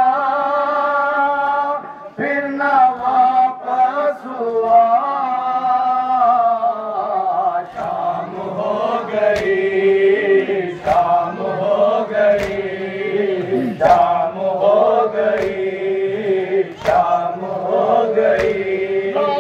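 Male voices chanting a Shia noha (Muharram lament) in long held lines. From about nine seconds in, sharp slaps of matam (hands striking bare chests) come in time, roughly every second and a half.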